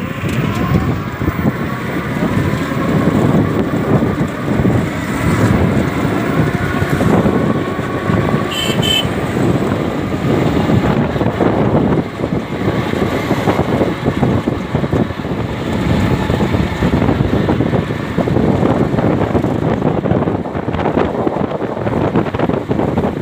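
Road traffic noise mixed with wind buffeting the microphone, rough and continuous, with a short high-pitched toot just under nine seconds in.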